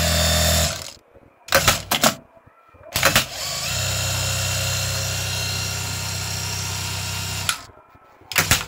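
Jack A4 industrial straight-stitch sewing machine, just serviced, running at speed with no fabric and stopping about a second in. A few sharp clacks follow, then it runs steadily again for about four seconds and stops, with two more clacks near the end.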